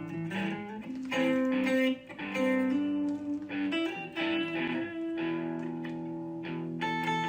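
Background music: a plucked guitar tune with notes changing about every half second.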